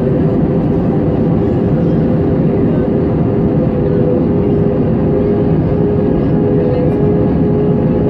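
Airliner cabin noise: a loud, steady rush of engine and airflow noise with a steady hum on top.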